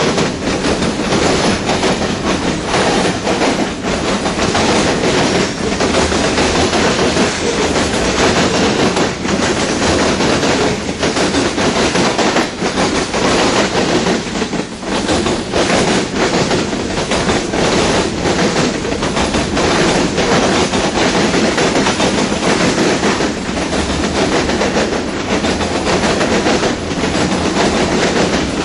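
Freight train cars rolling steadily past: a continuous loud rumble of steel wheels on rail, with frequent irregular clacks from the wheels.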